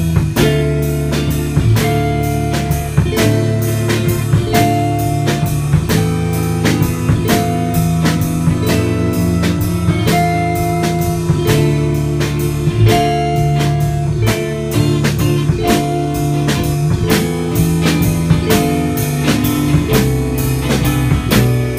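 A band playing a blues-rock song live: guitar over a drum kit keeping a steady beat.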